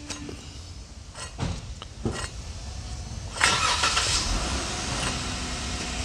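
Worn wheel hub bearing, out of the car in its steering knuckle, spun by hand: a few light knocks, then from about three and a half seconds in a louder, gritty, rushing grind. The bearing has come apart inside, and this is what makes the roaring noise while driving.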